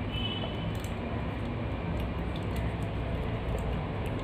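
Faint, sparse clicks of a small screw and metal parts being handled while a screw is fitted by hand into a circuit-board heatsink, over a steady low hum.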